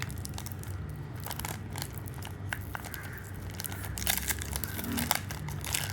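Foil Pokémon card booster pack being torn open and crinkled by hand, a run of small rips and crackles.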